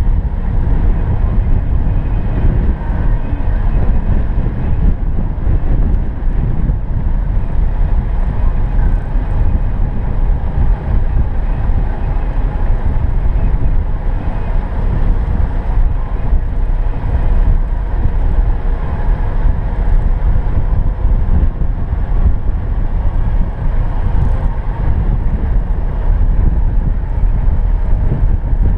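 A car driving along a snow-covered road, with a steady low rumble from the engine and tyres.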